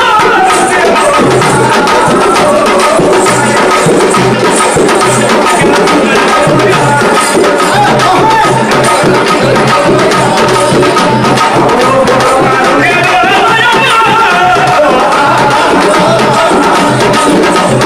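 Burrakatha folk performance: voices singing a bending melody over a steady beat of hand-held drums, with many quick percussive strokes throughout.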